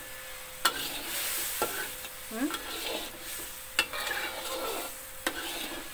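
Ground chili and turmeric spice paste sizzling in hot oil in an aluminium wok as a metal spatula stirs it, the spatula scraping the pan and knocking against it four times.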